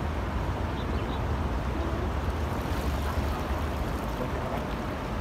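Steady wind rumbling on the microphone.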